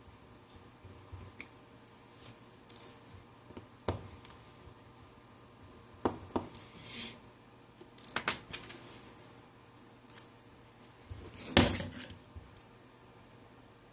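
Sporadic small clicks, taps and clinks of hard plastic and metal from handling a phone's parts and small tools during disassembly, with a louder clatter near the end.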